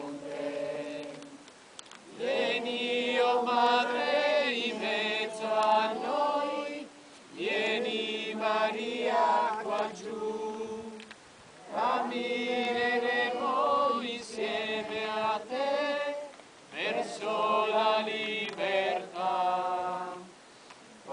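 Voices singing a slow religious chant or hymn, in four drawn-out phrases of a few seconds each, with short breaks for breath between them.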